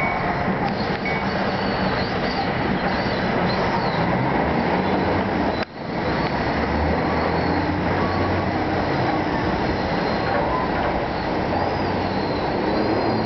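NJ Transit multilevel passenger train rolling past: a steady rumble and rattle of the cars on the rails, with faint high squeals. The sound briefly drops out about six seconds in.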